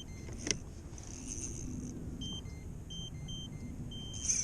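Several short electronic beeps from about two seconds in, in a quick irregular pattern, over a steady low rumble. There is a single sharp click about half a second in.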